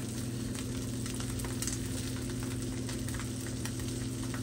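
Salmon fillet frying in melted butter in a pan: a steady sizzle with scattered small pops and crackles, over a steady low hum.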